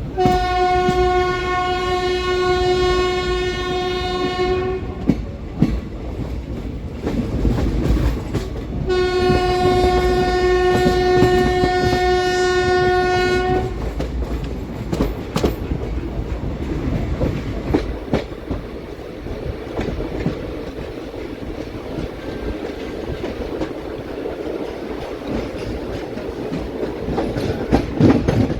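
Train locomotive horn sounding two long steady blasts of about four and a half seconds each, a few seconds apart. The passenger coach then runs on with a steady rumble and scattered wheel clicks over the rail joints.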